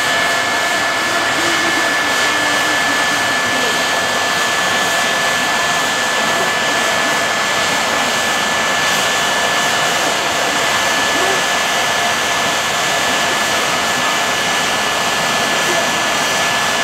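Jet car's turbine engine running steadily while the car stands at the start line: a loud, even rushing with a steady high whine over it.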